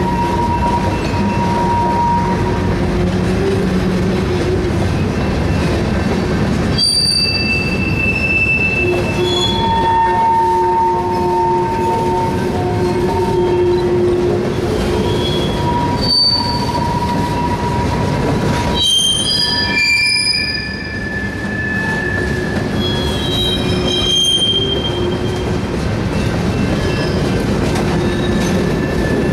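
Freight cars rolling past, their steel wheels squealing in several shifting pitches over a steady rumble of wheels on rail.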